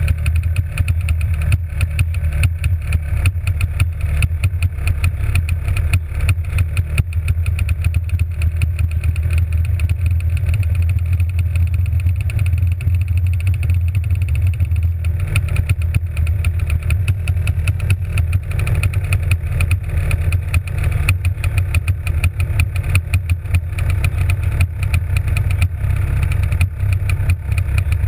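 Two-stroke kart engine idling steadily with the kart standing still, heard close up from on board.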